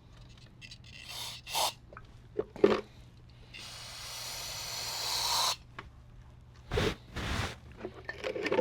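An aerosol can sprayed for about two seconds, a hiss that grows louder before cutting off. It is a spray starting aid given to a two-stroke blower engine that won't start. A few small clicks come before it, and two loud short thumps follow about two seconds later.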